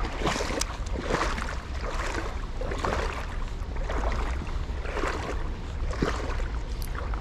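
Legs wading through knee-deep creek water: a splashing swish about once a second with each step, over a steady low rumble.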